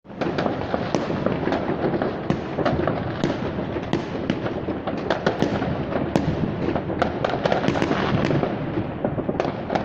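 New Year's fireworks and firecrackers going off all around: many sharp bangs and cracks at irregular moments over a continuous rumble of explosions.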